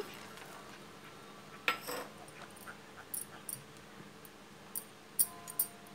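Quiet stirring of thick custard milk in a steel pan, with a few light clicks and knocks of the small steel bowl and spatula against the pan as chopped nuts are tipped in. The clearest knock comes a little under two seconds in; the rest are faint scattered ticks.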